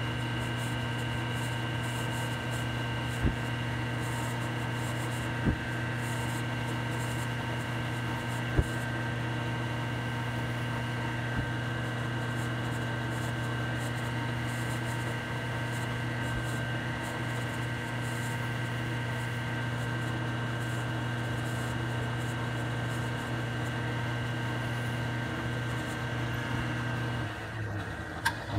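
Drill press motor running steadily while a twist bit bores the weight hole into a wooden crankbait body, with three sharp clicks in the first nine seconds. The motor winds down about a second before the end.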